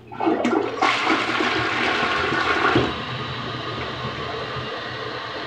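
Toilet flushing: a sudden rush of swirling water in the bowl, loudest for the first three seconds, then easing to a steadier, quieter run.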